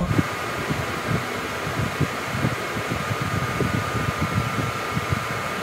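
Steady whir of a room fan with a faint high whine, with soft scattered taps and rustles close by.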